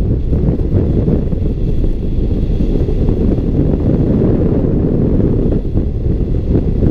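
Wind rushing over the microphone of a hang glider's wing-mounted camera in flight: a loud, steady low rumble.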